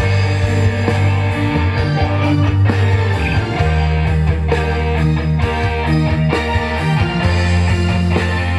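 Music played loud through a Bismarck BSX 12W12 wooden-cabinet speaker being sound-checked, with heavy sustained bass notes.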